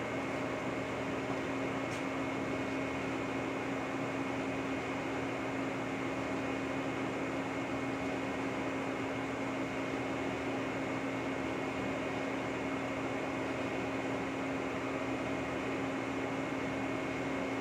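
Lucas model 41 horizontal boring mill running with a steady, unchanging mechanical hum, with a single light click about two seconds in.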